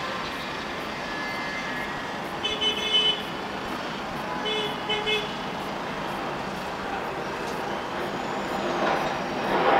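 Steady background noise with two short tooting tones about two seconds apart, and a brief louder rustling swell near the end.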